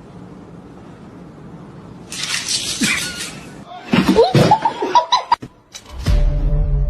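A person laughing in quick, pitched bursts about four seconds in, after a second-long hiss of noise. A low steady hum with a faint held tone comes in near the end.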